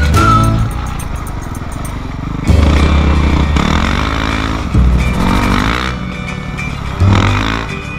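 Dirt bike engine revving as the bike accelerates along the trail. The throttle opens in three sudden surges about two seconds apart, the pitch climbing after each one.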